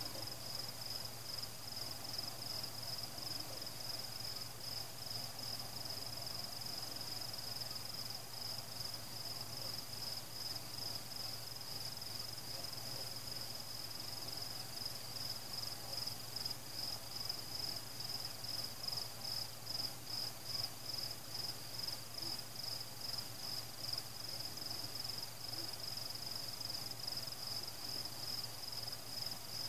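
Crickets chirping: one steady high-pitched trill repeating in an even pulse, over a faint low hum.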